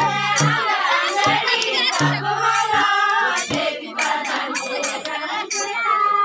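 A group of women and children singing a Pahadi Holi jhoda folk song together. A hand drum is struck along with the singing, with deep drum notes near the start and about two seconds in.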